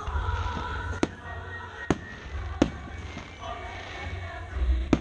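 Aerial firework shells bursting: four sharp bangs, irregularly spaced, the last near the end.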